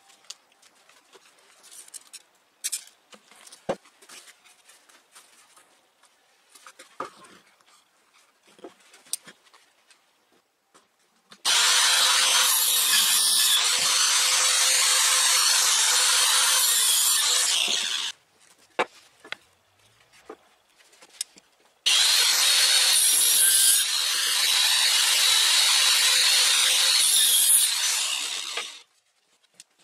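Skil 5330 Multisaw power saw cutting pine board in two steady runs of about six to seven seconds each, starting and stopping abruptly. Before that, light knocks of wooden pieces being handled and laid on the bench.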